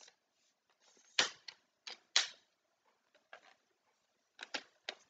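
Irregular clicks and knocks from a camera tripod's legs and joints being handled and adjusted, the loudest about a second and two seconds in, with lighter taps after.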